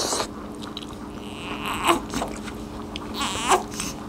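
Chewing and mouth sounds of people eating rice and fried fish by hand, with a newborn baby giving two short, high-pitched whimpers, over a steady low hum.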